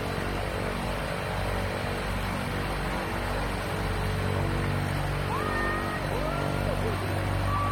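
Twin-engine turboprop jump plane running on the ground with a steady drone. A few short high whistled notes come in over it in the second half.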